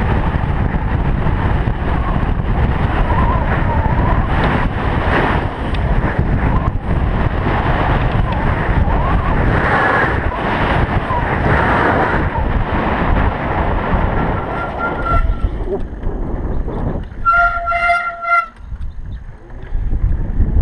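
Wind buffeting the microphone, with tyre and road noise, as an electric mountain bike descends a paved road at speed. Near the end the rush eases and a horn toots once for about a second and a half.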